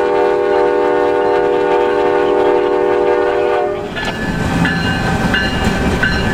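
Norfolk Southern GE Dash 9-40CW locomotive's air horn sounding one long chord of several notes, cutting off just under four seconds in. After that comes the rumble of the passing locomotive and a grade-crossing bell ringing about once every 0.7 seconds.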